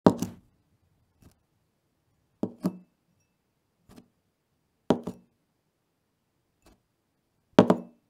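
A drinking glass set down on a wooden table four times, each a sharp double knock as the base meets the wood, with fainter single ticks in between.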